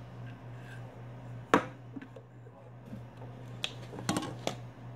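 A sharp click about one and a half seconds in, then a cluster of plastic clicks and crackles near the end as a plastic water bottle's cap is twisted open, over a steady low hum.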